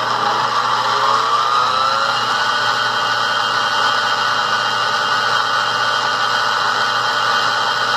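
Sieg mini mill running on its stock gear drive, a loud steady whine of motor and head gears whose pitch rises over the first two seconds as the speed is turned up, then holds at high speed. This gear noise is what a belt drive conversion is meant to quiet.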